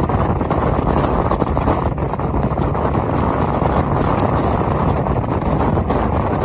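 Steady wind rushing over the microphone of a bass boat running at speed, with the outboard motor's drone beneath it.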